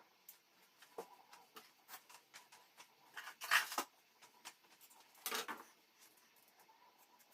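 Faint kitchen handling sounds: scattered light clicks and taps, with two short rustling or scraping noises about three and a half and five and a half seconds in.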